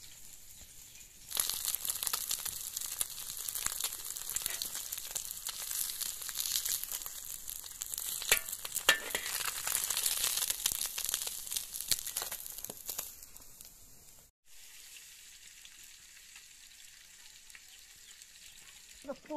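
Fish steaks sizzling as they fry in hot oil in an iron wok, with occasional clicks of a metal spatula. The sizzling starts loud about a second in and cuts off about three-quarters of the way through, leaving only a faint hiss.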